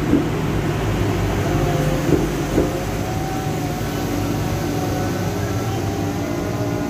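KAI KUJRL track and overhead-line measuring car running along the rails at low speed, with a steady engine hum, a couple of short knocks, and a faint whine coming in about three seconds in.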